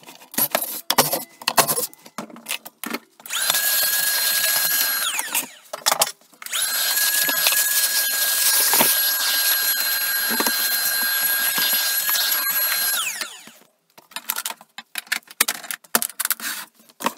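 Milwaukee wet/dry shop vacuum sucking up sawdust through its hose. It runs with a steady high whine twice, briefly and then for about six seconds, and winds down after each run. Hose and handling knocks clatter before and after.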